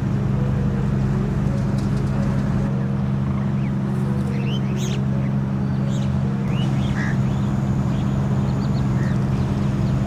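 A steady low hum, like a motor running, is the loudest sound and cuts off abruptly at the end. Short, high bird chirps and rising call notes sound over it from about four to nine seconds in.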